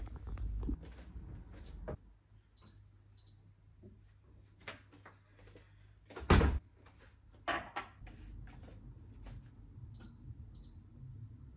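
Scattered knocks and clicks of objects being handled, the loudest a thump about six seconds in, with two pairs of short high electronic beeps.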